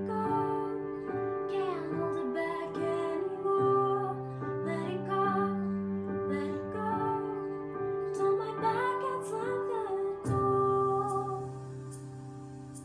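A teenage girl singing a solo vocal line over a backing track of sustained chords. Near the end her phrase ends and only the quieter backing is left.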